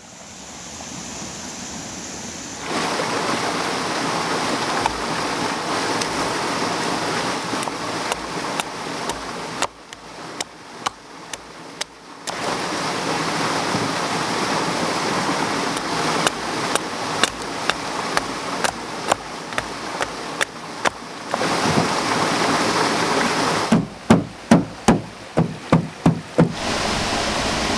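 Small mountain stream cascading over rocks: a steady rush of water. Cut in with sharp wooden knocks from a blade chopping and carving sticks, about one or two a second in the middle and a quick run of about eight near the end.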